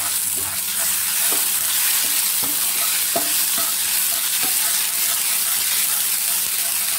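Ginger-garlic paste and spice powders frying in hot oil in a pan, a steady sizzle, being stirred with a spatula that scrapes the pan about once a second. The masala is being fried until its raw smell cooks off.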